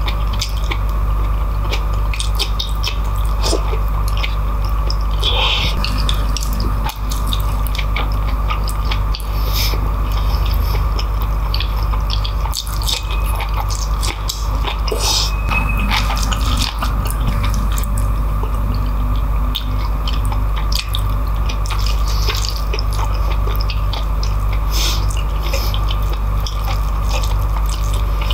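Close-miked eating sounds: wet chewing, lip smacks and sticky mouth clicks from a person eating beef kare-kare and rice with the fingers, over a steady low hum.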